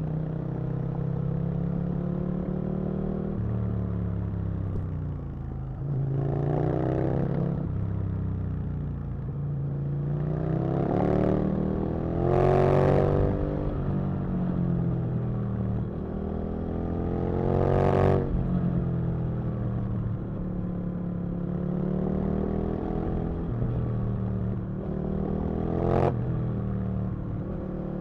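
Aprilia RSV Mille's V-twin engine under way, its revs rising and falling, with about four louder bursts of acceleration where the pitch climbs.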